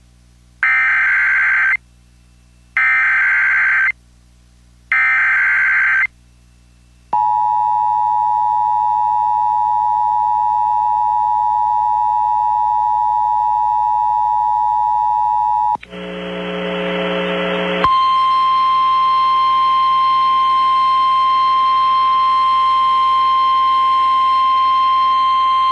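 Emergency Alert System tones. Three screechy SAME digital header bursts of about a second each are followed by the two-note EAS attention signal, held steadily for about eight seconds. After a couple of seconds of radio hiss and hum, a single steady NOAA Weather Radio alert tone sounds for about nine seconds, heralding a tornado warning.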